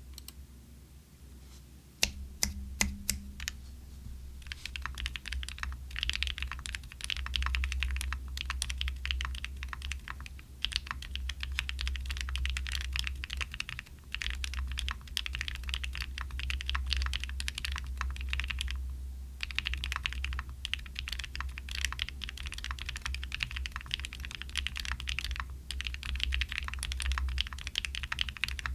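Typing on a Tofu60 2.0 gasket-mounted mechanical keyboard with LICHICX XCJZ Purple Bamboo tactile switches, a PC plate and EPBT Sav-81 PBT keycaps. A few separate keystrokes come first, then fast continuous typing that pauses briefly twice.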